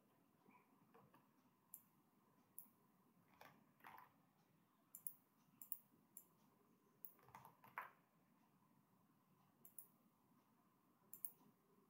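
Faint computer mouse clicks and keyboard key presses, a dozen or so short clicks at irregular intervals, some in quick pairs.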